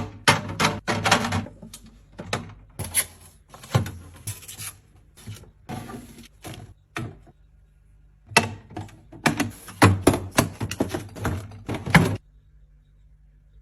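Containers and packages being handled and set down while restocking a fridge: an irregular run of clicks, taps and knocks with some rubbing, which stops abruptly about twelve seconds in, leaving only a faint low hum.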